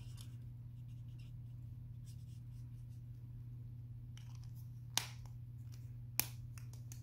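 Alcohol-ink marker tip scratching faintly on cardstock as colouring strokes are finished, over a steady low electrical hum. Two sharp clicks come about five and six seconds in.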